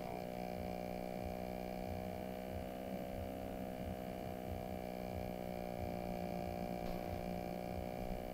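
Steady electrical hum, a buzz of many evenly spaced tones that holds level throughout, over a faint low rumble.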